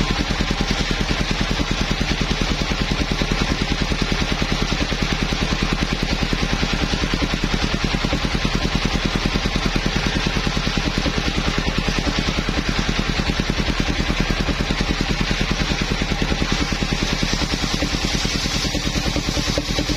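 The engine of a portable circular-saw sawmill running steadily with a fast, even pulse, with a brighter hiss building near the end.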